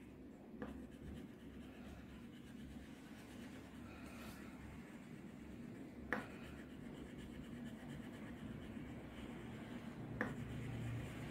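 Wax crayon scribbling on paper: a faint, continuous scratchy rubbing as a small flower is coloured in with tight circular strokes, with a few light taps against the paper.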